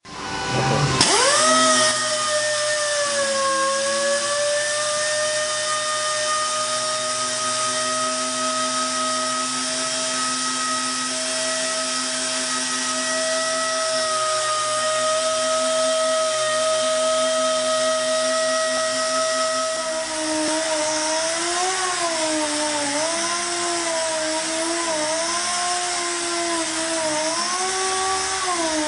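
GISON GPS air random orbital sander spinning up and then running free with a steady whine. From about twenty seconds in, its pitch dips and wavers as it is pressed down onto a wooden board under load.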